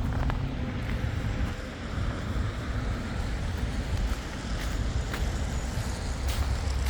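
City street ambience: a steady rumble of passing road traffic, with a few faint clicks in the second half.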